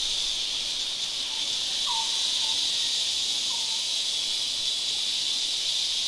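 Insects droning steadily in a high-pitched, unbroken chorus in dry forest, with a few faint short falling bird notes about one to four seconds in.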